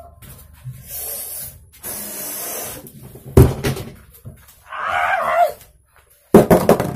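Beyblade spinning tops scraping and knocking in a clear plastic stadium: irregular hissing scrapes, a sharp knock about three and a half seconds in, and another loud knock near the end.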